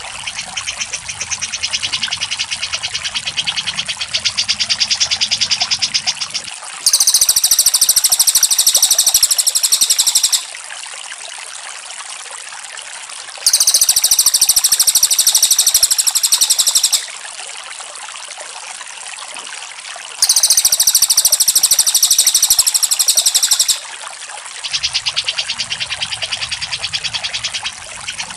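Recorded cak jenggot and cililin song played as a masteran for tutoring songbirds. A fast, steady chatter of repeated notes is joined three times by a loud, very high-pitched trill of about three and a half seconds, a few seconds apart. A low hum sits under the chatter at the start and near the end.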